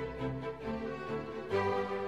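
Instrumental background music: held, pitched notes that change every second or so.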